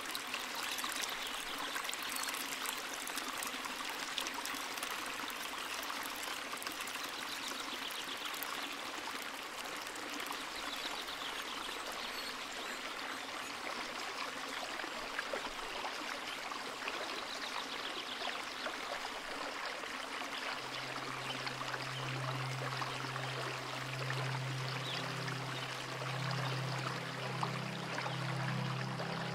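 Small waterfall splashing steadily into a pool, a constant rush of falling water. About twenty seconds in, low held music notes come in underneath the water.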